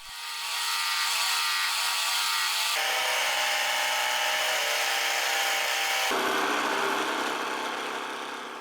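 Jigsaw mounted in a homemade jigsaw table running and cutting through a wooden strip. It is a steady sawing sound whose pitch shifts twice, about three and six seconds in, and it fades away at the end.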